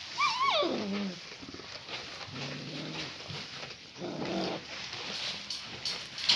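Great Pyrenees dogs vocalizing in play: a whine that slides down in pitch over about a second at the start, then two short low growls in the middle.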